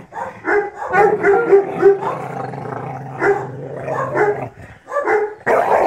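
A dog guarding a bone growls as a hand is on her: a low, steady growl with louder snarls over it. This is a warning that she will bite to keep the bone.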